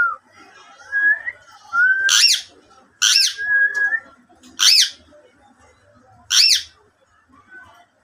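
Caged parakeet giving four loud, short screeching calls, each rising and then falling in pitch, one to two seconds apart, with softer held whistles between the first few.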